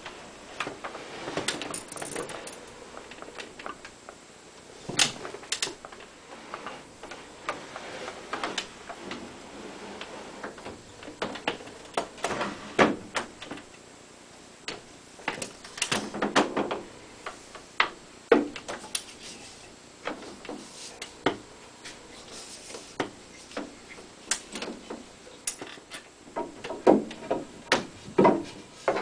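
Wooden knocks, clicks and short sliding scrapes as the keyframe of a Viennese Streicher fortepiano (c1870) is handled and pushed into its case, with a cluster of knocks near the end.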